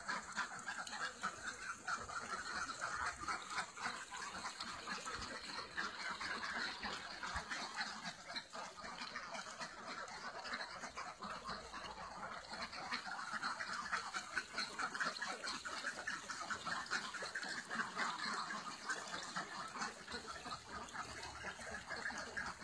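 A large flock of domestic ducks quacking continuously, many calls overlapping into a steady clamour.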